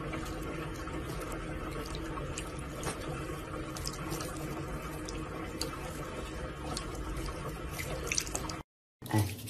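A tap running in a thin stream onto a kitten's head and into the sink: steady splashing water with scattered drips. It cuts off suddenly shortly before the end.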